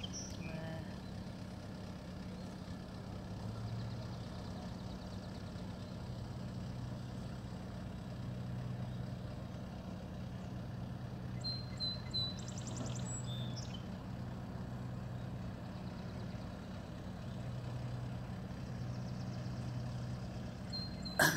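Diesel engine of a car-hauler semi truck idling with a steady low hum, with birds chirping briefly about two thirds of the way through and a single sharp click right at the end.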